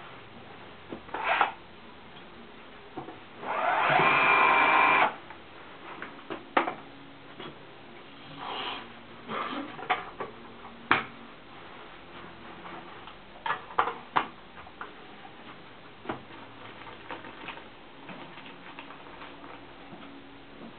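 A hand-held power drill runs with a steady whine for about a second, a few seconds in, while fixing the roller blind to the window frame. Around it come scattered short clicks and knocks from handling the blind's fittings.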